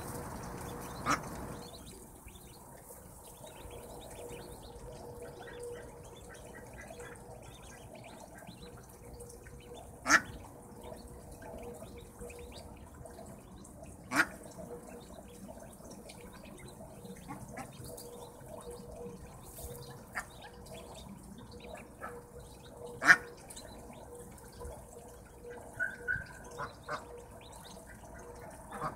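Domestic ducks quacking a few times, each call short and sharp, the loudest about three quarters of the way through, over a steady soft peeping of days-old ducklings.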